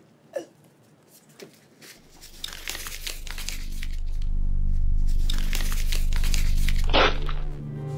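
Paper crinkling and rustling as a rolled sheet is handled and unrolled, over a low drone that swells up from about two seconds in and drops away near the end, with a sharp crackle just before it stops.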